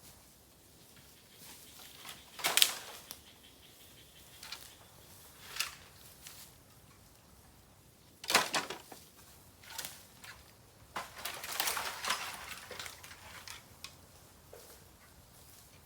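Bamboo burning in an open fire: sparse sharp pops and cracks, the loudest about two and a half seconds in and again about eight seconds in, with fainter ticks between and a run of denser crackling about eleven seconds in.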